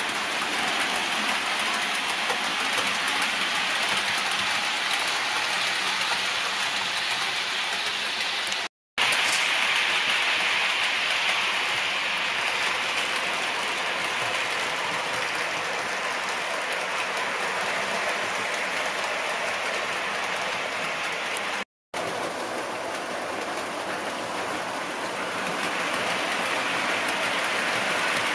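OO gauge model trains running on the layout: a steady rushing hiss of wheels rolling over the track. It is broken by two brief dropouts, about nine seconds in and again about twenty-two seconds in.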